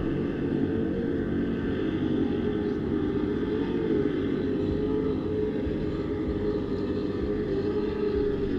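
Racing powerboat's engines running at speed across the river, a steady drone whose pitch wavers slightly.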